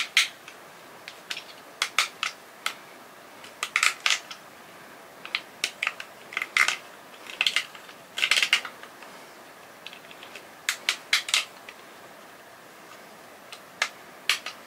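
Cutter knife blade cutting round the inside of a small plastic screw lid to hollow it out: irregular sharp clicks and snaps as the plastic gives way, in short clusters with a brief pause near the end.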